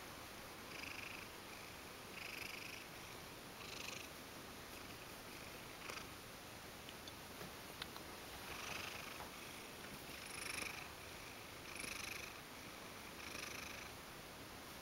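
Ragdoll cat purring softly while being stroked, a contented purr that swells in pulses about every second and a half.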